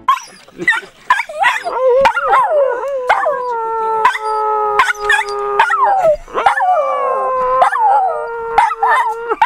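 Small shaggy-coated dog howling: long wavering calls that slide up and down and settle twice into long held notes, broken by a few short sharp sounds.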